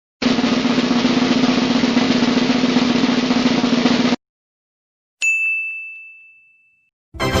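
Sound-effect drum roll: a fast, steady snare roll lasting about four seconds and stopping abruptly. About a second later comes a single bright ding that rings out and fades. Another short effect starts right at the end.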